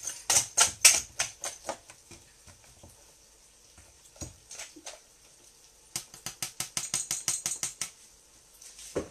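Wire whisk beating eggs in a plastic bowl: fast clicking strokes, about seven a second, in two runs of about two seconds each. A few single knocks fall between the runs, and there is a duller thump near the end.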